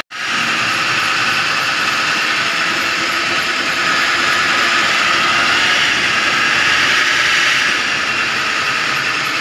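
Motor-driven spice grinding mill (pulverizer) running steadily under load, grinding dried red chillies and spices into chilli powder. It makes a loud, even mechanical noise.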